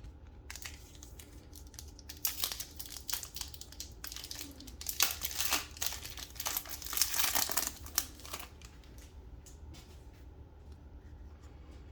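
Plastic-foil trading-card pack wrapper crinkling and being torn open, in a short burst of rustling about two seconds in and a longer one from about five to eight seconds, with light clicks in between.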